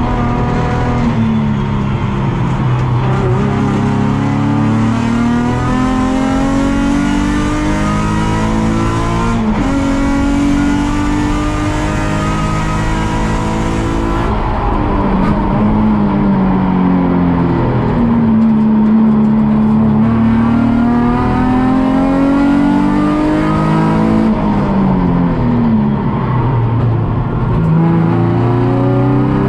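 Nissan 350Z race car's 3.5-litre V6 heard from onboard under racing load. It revs up through the gears, rising in pitch, drops at each shift and under braking, then climbs again.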